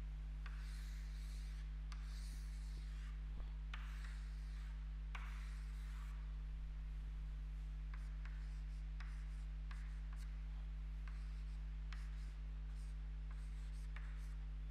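Chalk on a chalkboard: long scraping strokes as ovals are drawn in the first half, then short quick scratches and taps as numbers and letters are written. A steady low hum runs underneath.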